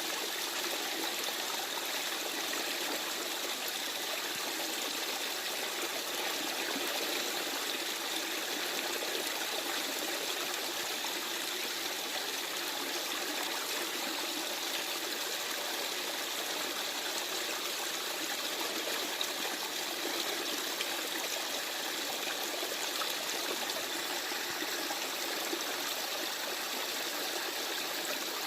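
A small woodland stream running over stones, a steady babbling trickle of water with no change.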